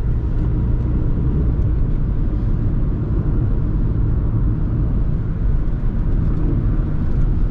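Ford Tourneo Custom van with its 2.0 TDCi four-cylinder diesel running, heard as a loud, steady low rumble.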